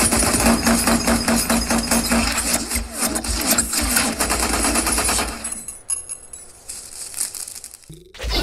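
Rapid automatic gunfire from an action film's soundtrack, played back through a JBL Cinema SB160 soundbar. The shooting stops about five and a half seconds in and fades away.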